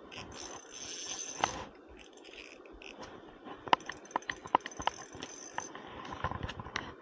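Spinning reel running in two spells of about a second each, a high-pitched buzz, while a hooked trout is played on the line, with scattered clicks and knocks of handling the rod and reel.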